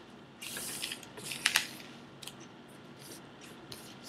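Sealed trading-card packs being handled and slid into a row on a wooden table: a soft wrapper rustle about half a second in, then two sharp clicks around a second and a half, followed by a few faint ticks.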